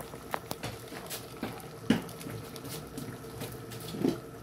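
Menudo stew in tomato sauce bubbling in a pan on a gas stove, with scattered soft pops and clicks. The sharpest comes about two seconds in.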